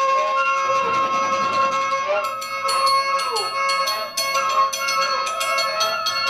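Free-improvised music for found percussion, bass clarinet and lo-fi electronics: steady high sustained tones with a few falling pitch glides, and from about two seconds in a fast clatter of small taps and clicks on the drum kit's found objects.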